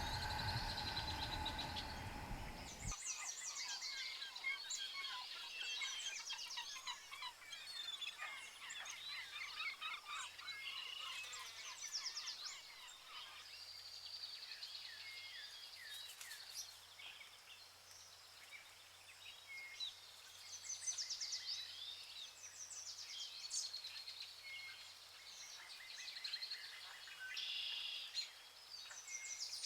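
Many birds chirping and singing together, a dense mix of short calls and trills. A sustained pitched sound underneath cuts off about three seconds in, leaving the birdsong on its own.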